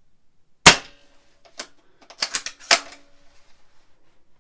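Novritsch SSG10 spring-powered airsoft sniper rifle firing one shot, a single sharp crack, followed over the next two seconds by a click and then a quick run of clicks and clacks as the bolt is cycled to recock it.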